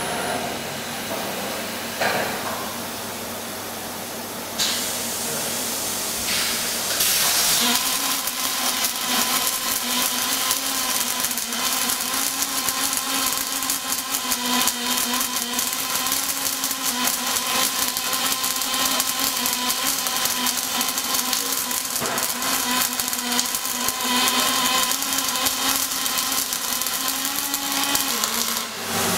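Robotic MIG/MAG arc welding on a rotating steel axle tube: the arc starts about a quarter of the way in and crackles steadily over a steady machine hum, then stops abruptly just before the end. Before the arc, a steady machine hiss.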